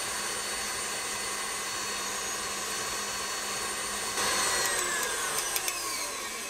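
KitchenAid Classic Plus stand mixer running with its 6-wire whip, beating heavy cream in a stainless steel bowl: a steady motor whine. About four seconds in it gets suddenly louder, and then its whine falls in pitch, with a few light ticks.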